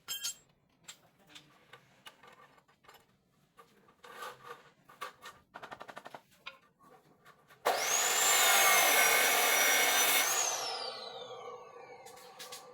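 Scattered knocks and taps, then a handheld electric power tool starts abruptly and runs loudly with a high whine for about two and a half seconds. When it is switched off, its whine falls steadily as the blade or motor spins down.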